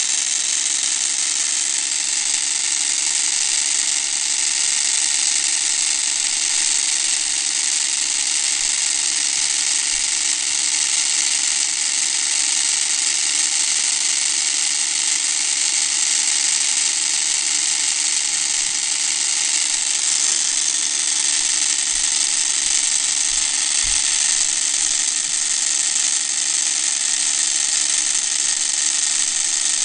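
Meccano model helicopter's small motor and gearing running steadily, a constant high-pitched whir as it spins the main and tail rotors.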